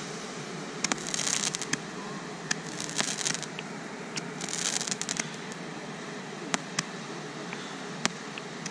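10-shot Roman candle firing: three short hissing bursts with sharp pops, about a second and a half apart, then a few scattered single cracks.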